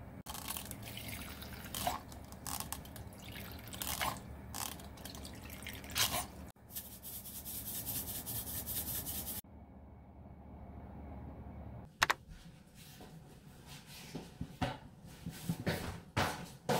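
Cooking sounds as a pot is seasoned on a stove: a spoon tapping and scraping, then a few seconds of steady hiss as salt is shaken in. Near the end there are some sharp knocks and clicks.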